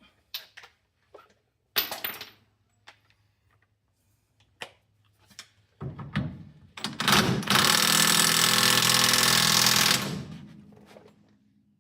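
A handheld power tool spins up, runs loudly for about three seconds and winds down over about a second, after several light metal clicks and knocks from tools being handled.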